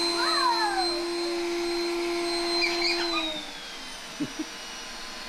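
Roomba robot vacuum running with a steady hum and a high whine. A little after three seconds in, both drop in pitch and the sound gets quieter, as the motor winds down. A short falling squeal is heard over it about half a second in.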